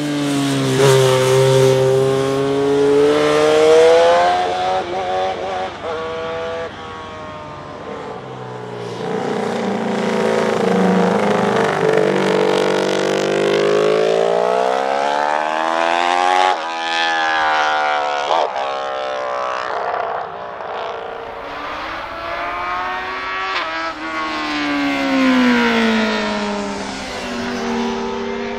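Racing motorcycle engines revving hard under acceleration, the pitch climbing through each gear and then dropping sharply at the gear changes, with one abrupt shift about two-thirds of the way in.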